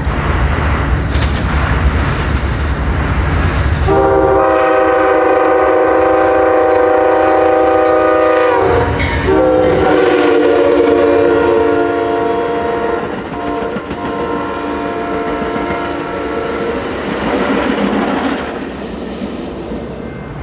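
Diesel locomotive rumbling, then its multi-note air horn sounds two long blasts: the first starts about four seconds in and lasts about four seconds, and after a brief break the second is held for about seven seconds before fading into the train's running noise.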